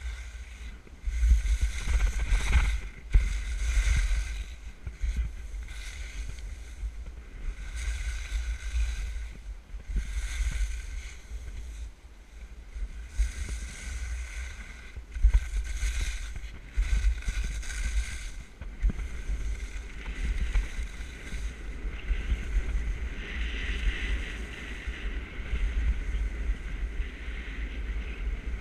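Skis scraping and rasping through turns on chopped-up, crusty snow, a burst of hiss every second or two, with wind buffeting the microphone as a deep rumble. From about two-thirds of the way in the scraping settles into a steadier hiss as the skis glide over smoother groomed snow.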